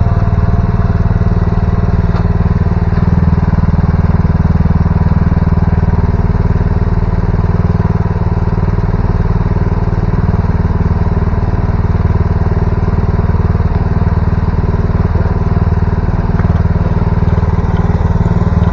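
Mini excavator's small diesel engine running steadily.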